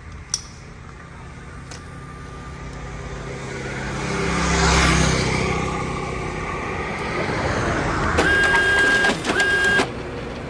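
A motorcycle passing on the road, its engine growing louder to a peak about five seconds in and then fading. Near the end, a loud steady high tone with a hiss sounds twice, each time cutting off sharply.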